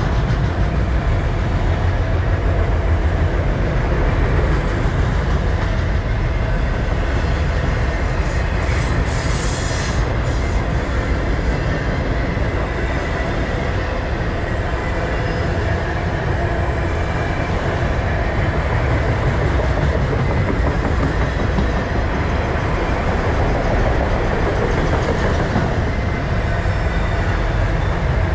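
Freight train's autorack cars rolling past, steel wheels on the rails making a steady low rumble, with a brief high hiss about eight seconds in.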